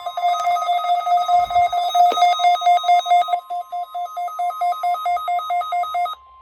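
Weather radio alert for a required weekly test: rapid beeping in two alternating pitches, about four beeps a second, over the broadcast's steady warning alarm tone. The beeping stops near the end.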